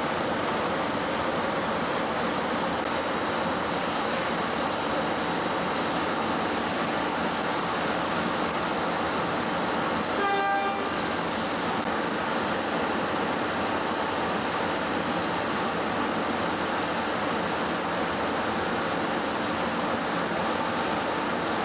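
Diesel railcar's engine running steadily, with a short horn toot about ten seconds in.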